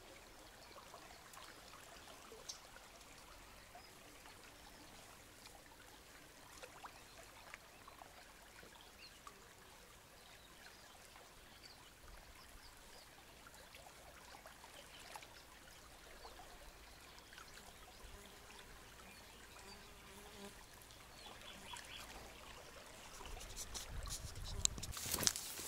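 Faint ambience of a small river flowing, with a few faint high chirps and small ticks. Toward the end, louder handling noise and knocks come in.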